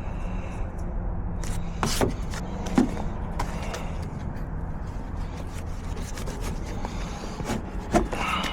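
A few sharp clicks and light scraping from a locksmith's lockout tools working on a car door, over a steady low rumble.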